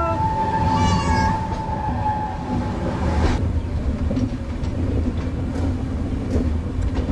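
Passenger train running, a steady low rumble of the moving coach. A high held tone sounds over it for the first two seconds, and a high hiss drops away about three seconds in.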